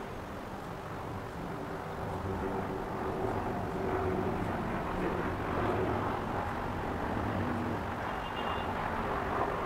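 Steady outdoor engine rumble of distant traffic across the river, growing somewhat louder about three seconds in.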